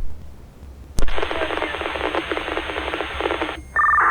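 Radio scanner picking up a keyed transmission: a click, then a second click about a second in as the squelch opens on roughly two and a half seconds of hissing static. The static cuts off and a short two-tone beep sounds near the end.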